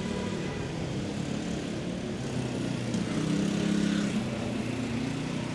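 An engine running steadily, a low hum that swells slightly about three seconds in.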